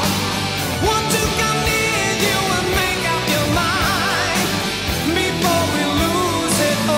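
Background song: a sung melody with vibrato over a steady drum beat.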